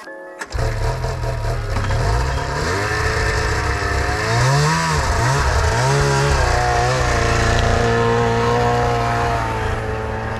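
Arctic Cat ZR600 snowmobile's 600cc two-stroke engine comes in suddenly about half a second in, is revved up and down several times, then runs steadily.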